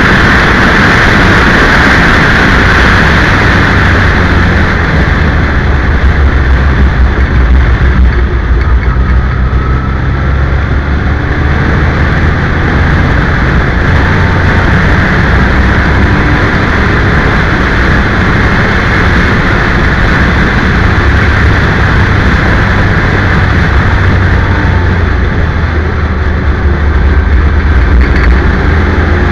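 Loud onboard sound of an open-cockpit race car at speed on track: engine noise mixed with rushing wind, steady with slight rises and falls as it goes through corners.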